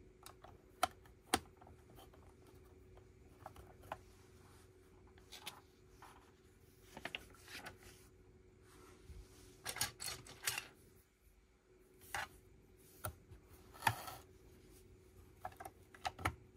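Lego bricks being handled and snapped together: irregular sharp plastic clicks with a few short rattles of pieces.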